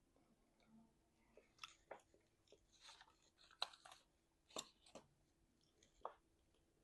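A person chewing meat messily with the mouth open: wet smacking and clicking mouth sounds, about seven sharp smacks spread through the middle of the stretch, between quieter chewing.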